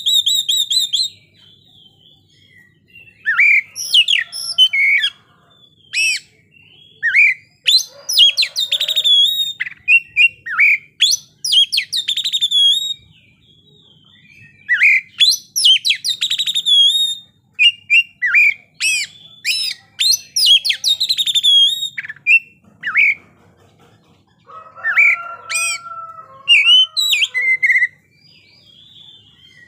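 Oriental magpie-robin singing in loud bouts of varied phrases, sweeping whistles and quick runs of notes, broken by short pauses of about a second.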